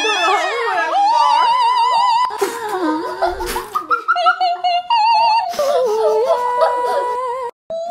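High operatic singing voice holding notes with wide, regular vibrato and stepping through a melody, with some sliding notes at the start; the sound cuts out briefly near the end.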